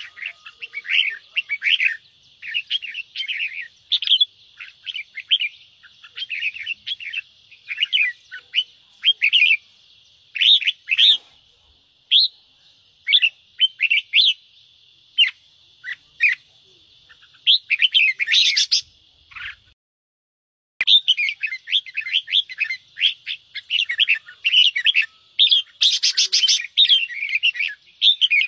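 Red-whiskered bulbuls giving rapid, harsh chattering "ché" calls, the aggressive challenge calls used to stir caged bulbuls into fighting form. The calls break off for about a second roughly two-thirds of the way through, then start again.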